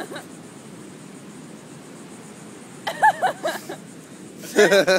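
People laughing in two short bursts, about three seconds in and again near the end, over a steady background hiss.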